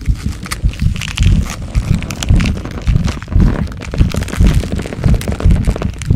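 Transformation growth sound effect: irregular deep thumps about every half second, layered with dense cracking and crackling like bones and flesh stretching.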